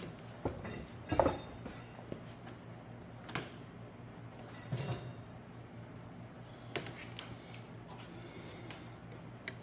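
A few scattered small knocks and clicks from hands handling tools and a plastic housing, the loudest about a second in, over a steady low hum.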